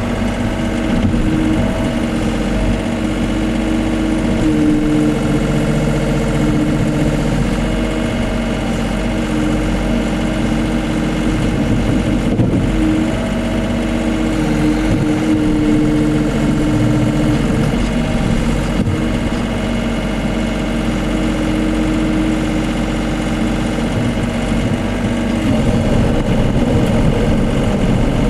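Case CX39B mini excavator's diesel engine running steadily, heard from the cab, its tone shifting slightly every few seconds as the arm and bucket dig.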